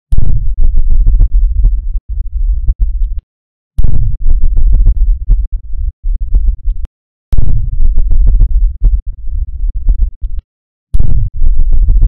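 Synthesized deep bass rumble sound effect: a loud, very low rumble with a crackly edge. Each burst starts abruptly, drops to a quieter rumble and then cuts off, repeating four times about every three and a half seconds.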